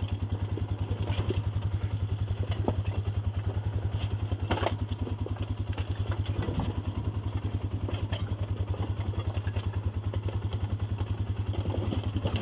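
ATV engine running at a low, steady speed with an even pulse, with a few short knocks and clatters from the machine over rough ground.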